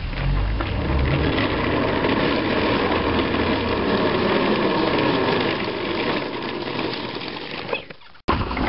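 A small motorbike engine running as it comes along the road, swelling through the middle and fading after about six seconds. The sound drops out abruptly near the end, then a few handling bumps follow.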